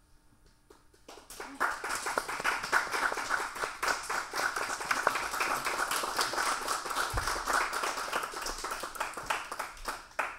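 Small audience applauding, starting about a second in and dying away near the end.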